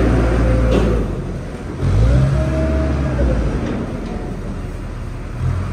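Wheel loader's diesel engine running and revving up about two seconds in, with a higher whine that rises and falls over the engine drone.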